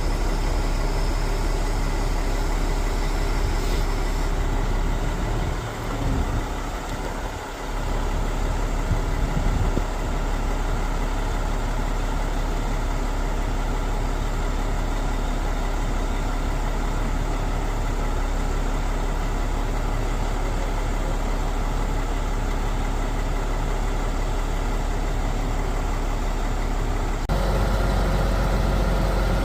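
Concrete pump truck's diesel engine running steadily at idle. About 27 seconds in, the sound steps up a little louder, with a new higher steady note.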